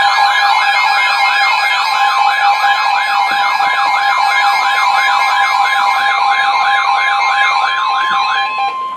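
Electronic emergency-alert tone: a siren-like warble sweeping rapidly up and down, about three sweeps a second, over a steady high tone. The warble stops shortly before the end and the steady tone cuts off a moment later.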